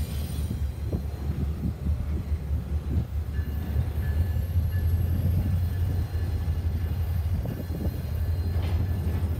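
CSX double-stack intermodal freight train passing close by: a steady low rumble of wheels on rail, with scattered clanks from the railcars.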